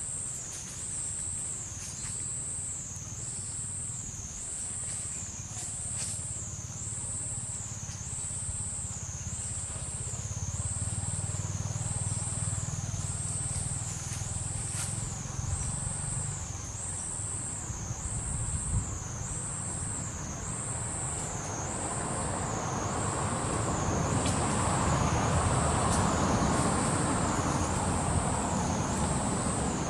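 Outdoor ambience: a high, wavering whine that pulses about once every second and a half, under the low rumble of a motor vehicle that grows louder through the second half.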